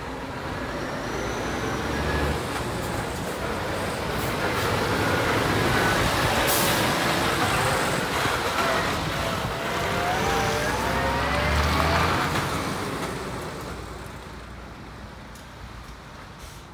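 Scania P380 6x2 tipper truck's straight-six diesel engine pulling away and driving past, growing louder and then fading into the distance, with the engine pitch rising again and again through the gears. A brief hiss about six and a half seconds in.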